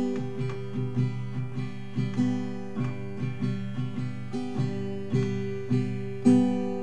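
Background music: acoustic guitar, plucked notes and strums ringing out one after another.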